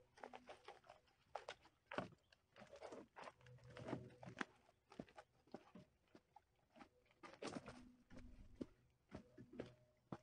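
Faint footsteps crunching on a dirt and gravel path, with scattered rustles and small knocks, as two people carry a kayak.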